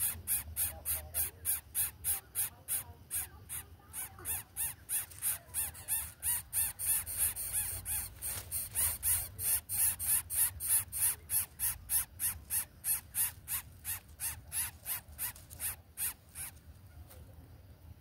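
Greater coucal nestling begging: a fast, even run of short raspy hisses, about three to four a second, that stops abruptly near the end.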